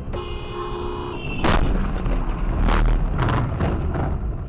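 Road vehicle collision: a steady tone held for about a second, then a loud crash about a second and a half in, followed by several more sharp impacts.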